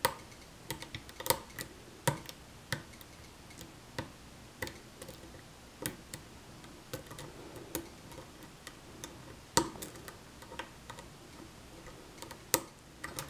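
Sharp, irregular clicks of a lock pick working the pin stack of a challenge lock held under a tension wrench, roughly one or two a second, a few much louder than the rest.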